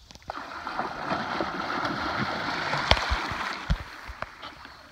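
Water churning and splashing as a dolphin rushes along the surface right beside the kayaks: a rushing, gurgling wash that starts a moment in, with a sharp splash a little past the middle, then fades.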